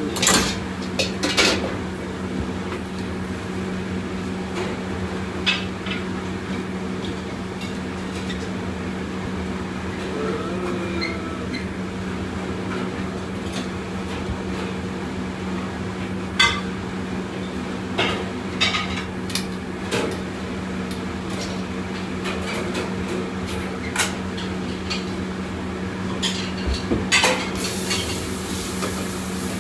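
Steady hum of a commercial wok range, broken by scattered metallic clanks of a carbon-steel wok and steel ladle being handled, with a cluster about a second in and several more in the second half.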